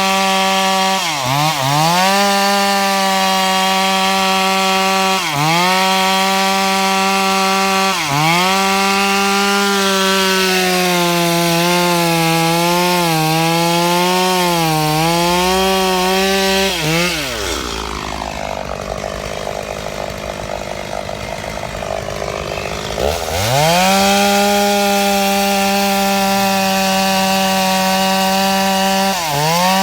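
Two-stroke chainsaw running at full throttle cutting mango wood, its engine note dipping briefly every few seconds and wavering as the chain bites. About seventeen seconds in it drops to idle for some five seconds, then revs back up to full speed.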